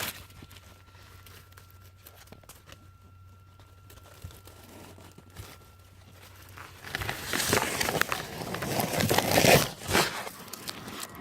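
Loud crinkling and rustling of material being handled, starting about two-thirds of the way in and lasting about three seconds.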